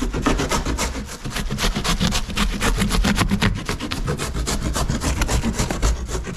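Packing box being pulled and torn apart, a fast run of rasping, scraping strokes, about ten a second, with a low rumble beneath.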